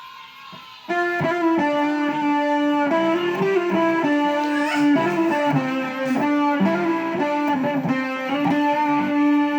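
Electric guitar played through an effects unit, starting about a second in with a melodic line of long, sustained notes.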